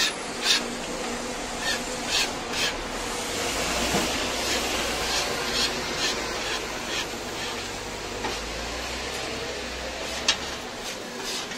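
Metal blade or spatula knocking and scraping on a flat griddle as chopped kokoreç is worked, giving irregular sharp clicks over steady background noise, with a low rumble through the middle.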